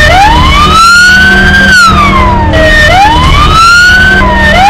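Ambulance siren wailing loudly. Its pitch climbs slowly for about a second and a half, then falls back, and the cycle repeats about twice, over a steady low drone.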